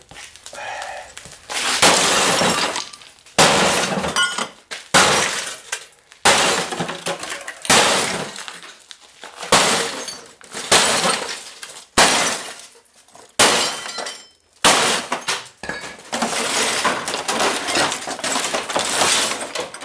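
An axe repeatedly smashing into a 1995 RCA CRT television, about a dozen heavy blows roughly one every second and a half, each with cracking and shattering glass and plastic. Near the end the crashing runs on longer without a break.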